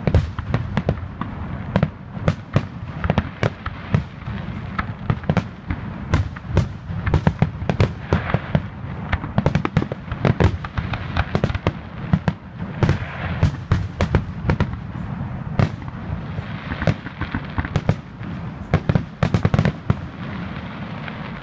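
Aerial fireworks shells bursting in a rapid, dense barrage, several loud bangs a second with crackle between them, the build-up to the show's finale. The bangs stop shortly before the end.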